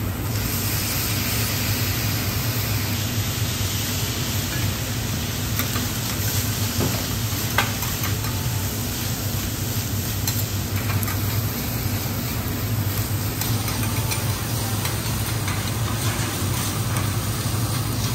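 Egg fried rice sizzling on a steel teppanyaki griddle, the sizzle rising as soy sauce hits the hot plate. Metal spatulas scrape and click against the griddle a few times as the rice is chopped and turned, over a steady low hum.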